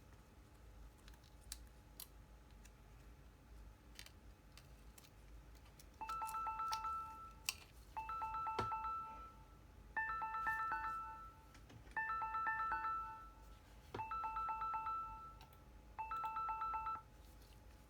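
An electronic ringtone: a short pulsing phrase of several pitched tones, repeated six times about every two seconds after a few faint clicks.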